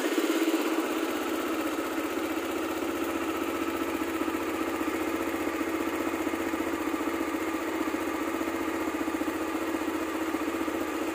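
CFMOTO CForce 520L ATV's single-cylinder engine idling steadily just after being started, freshly filled with new oil and a new filter. There is no tapping from the cylinder head, so the valve clearances are taken to be fine.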